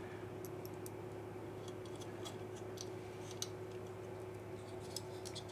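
Faint, irregular small clicks and ticks of a small hand tool and fingers working on a circuit board, over a steady low hum.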